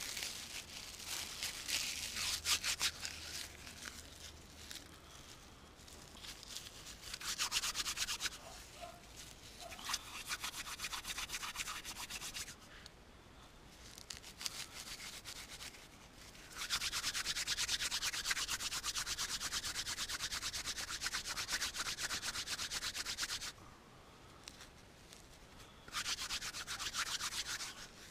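Rapid, even scratching and rubbing strokes in bursts of a few seconds, the longest about seven seconds, from hands working dry tinder over a bundle of dry grass for a fire.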